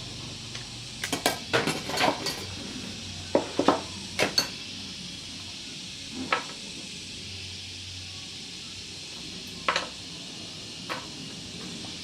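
Metal objects clinking and knocking together, as in handling metal parts or tools: a quick run of about ten ringing clinks in the first few seconds, then three single knocks spaced a few seconds apart, over a faint steady hum.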